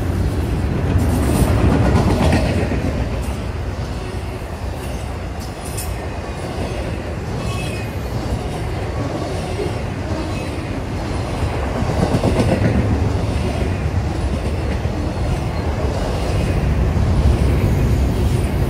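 Norfolk Southern double-stack intermodal train's well cars rolling past: a steady, loud rumble of steel wheels on rail, with scattered clacks as the wheels cross rail joints.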